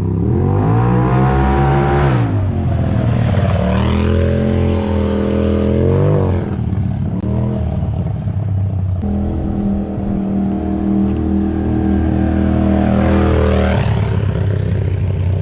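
Polaris RZR Turbo engine through an RPM header-back full exhaust, revved up and let back down a couple of times, then held at a steady raised speed before one more rev near the end. The exhaust note is loud with a low bark.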